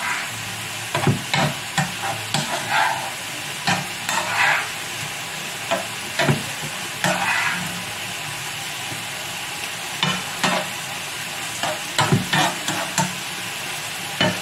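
Whole young fava bean pods frying in olive oil in a frying pan, sizzling steadily, while a spoon stirs them and scrapes against the pan in short irregular strokes.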